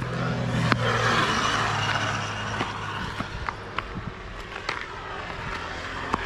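A motor vehicle passing close by: a low engine hum whose pitch drops slightly about a second in, with tyre hiss that swells and then fades. Scattered sharp clicks and taps run through it.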